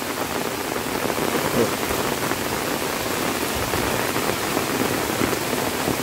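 Rain falling steadily, an even hiss with no break.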